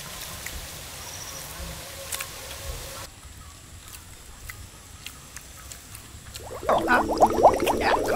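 A quiet stretch of faint rustling and clicks, then after about six and a half seconds a loud, bubbling gurgle comes in, a comic sound effect.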